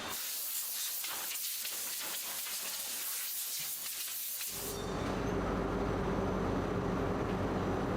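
A steady high hiss, like air or spray under pressure, that cuts off suddenly about four and a half seconds in. It gives way to the steady hum of factory machinery.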